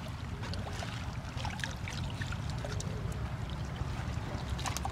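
Hands rummaging through a wet heap of small fish and leaf debris in a fishing net, giving many quick wet clicks, slaps and rustles, over a steady low rumble.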